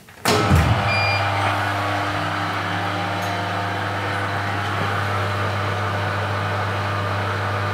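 A Blue Elephant 1325 CNC router powering up from its start button: a clunk as it switches on, a short beep about a second in, then a steady electrical hum with a low drone as the machine sits powered while its controller boots.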